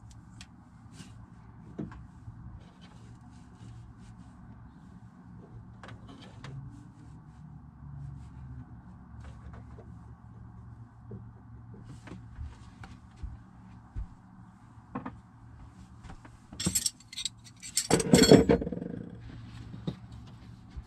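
Small clicks and taps of hands working on gas pipe fittings, then a loud clatter of metal near the end as two open-ended spanners are put down on the floor.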